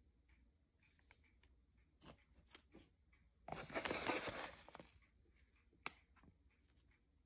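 A stiff plastic food bag rustling and crinkling for about a second and a half as a hand lifts it out of a cardboard box, with a few light taps and clicks before and after.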